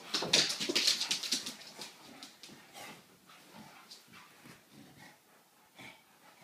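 Two Shar-pei puppies play-fighting: a rapid, loud burst of scuffling in the first couple of seconds, then softer scattered rustling and small dog noises.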